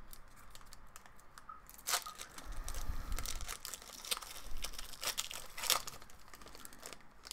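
Hockey card packs being torn open and their wrappers crinkled, with the cards being handled. There are irregular crackles and rustles, starting about two seconds in.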